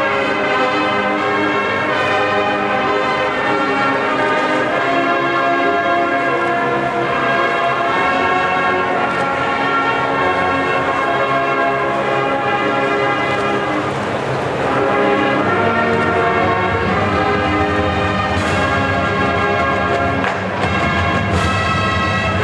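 College marching band playing slow, sustained brass chords that shift every second or two, with a swell about two-thirds through and two sharp crashes near the end.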